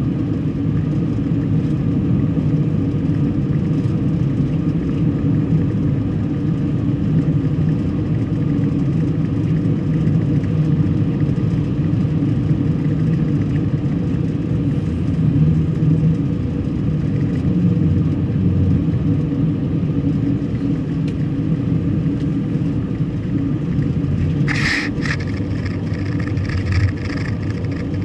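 Car driving: a steady engine and road rumble, with one brief sharp sound near the end.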